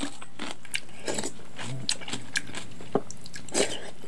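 Close-up sounds of a person eating rice soaked in cold water with kimchi: irregular wet chewing and smacking, with a few sharper crunches.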